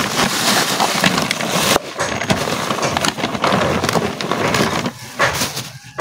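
Plastic bags rustling and crinkling as a hand rummages inside a sack, with a short pause about two seconds in.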